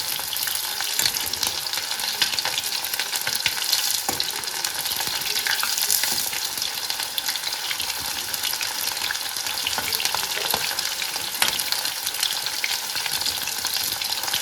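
Chicken pieces frying in hot oil: a steady sizzling hiss with many small pops and crackles throughout.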